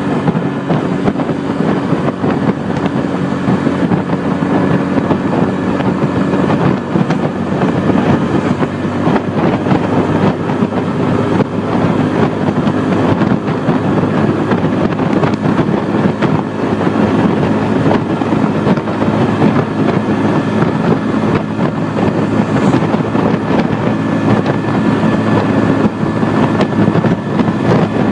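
Bajaj Boxer BM 125 X motorcycle's single-cylinder engine running steadily while riding, with heavy wind noise on the microphone.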